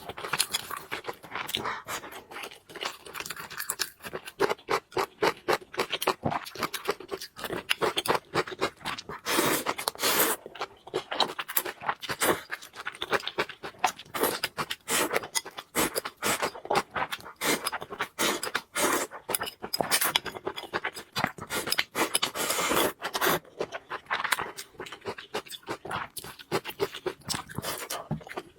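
Close-miked eating sounds: a person chewing food, heard as a dense stream of rapid wet clicks with scrapes.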